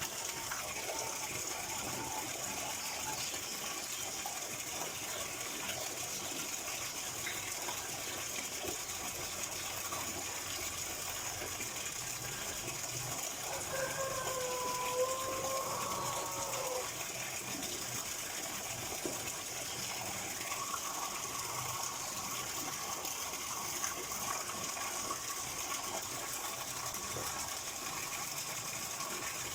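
Steady rush of flowing water, as a stream or water channel running. About halfway through, a rooster crows once, drawn out over two or three seconds.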